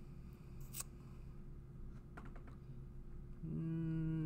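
Quiet classroom room tone with a steady low hum, a sharp click just under a second in and a few faint ticks, then near the end a man's held, wordless 'uhhh' for about a second.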